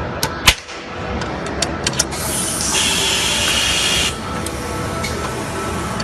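Soyer HesoMatic 9 capacitor-discharge stud welder firing with one sharp crack about half a second in, followed by a few lighter clicks. Then about two seconds of compressed-air hiss as the automatic feeder blows the next stud through to the gun.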